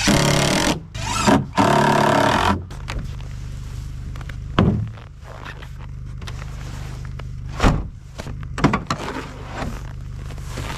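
Cordless impact driver whining in two short bursts, driving screws through a steel hinge into plywood. After that, a few dull thumps over a steady low hum.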